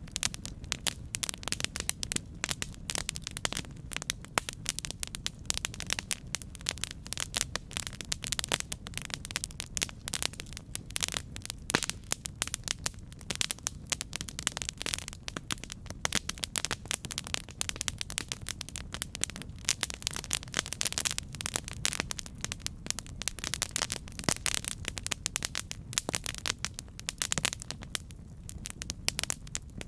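Campfire burning with dense, irregular crackling and popping over a steady low rumble of the flames.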